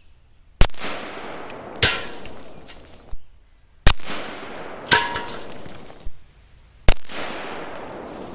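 Three single shots from a 16-inch 5.56 AR-15 rifle (Palmetto State Armory PTAC kit), about three seconds apart, each report echoing away. About a second after each shot comes a smaller, sharper ringing crack.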